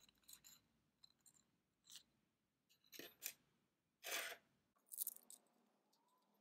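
Small 3D-printed plastic valve parts being handled and fitted together by hand: faint scattered clicks and short scrapes, with a longer scrape about four seconds in.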